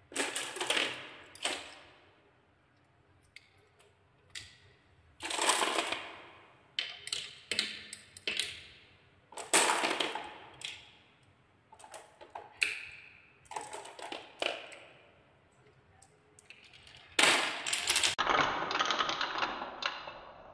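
Marbles and small balls clattering and rolling down wooden marble-run tracks, in repeated bursts of rattling clicks with quieter gaps between. Near the end a steadier rolling rattle runs for about three seconds as the balls circle a wooden spiral track.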